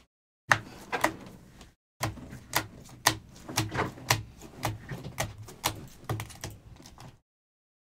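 Clear plastic card holders clicking and tapping against each other as a stack of sports cards is flipped through one by one, roughly two sharp clicks a second.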